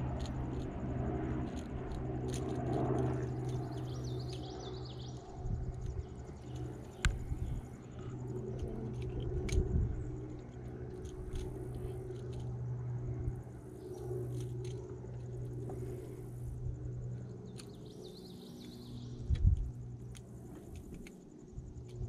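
Bow-mounted electric trolling motor running with a steady low hum, with occasional small clicks and knocks.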